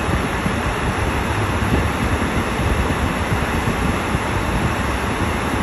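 Steady rushing noise with a strong low rumble inside a car's cabin, the kind made by a car idling with its heater fan running.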